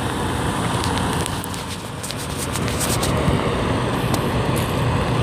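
Semi truck's diesel engine running as the Freightliner Cascadia tractor-trailer pulls slowly across a gravel lot, a steady low rumble with scattered faint clicks.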